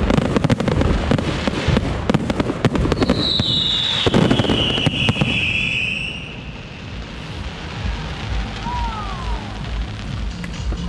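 Aerial fireworks going off in a rapid barrage of bangs and crackling, with a high whistle sliding down in pitch about three seconds in. The barrage thins out after about six seconds, leaving a lower rumble.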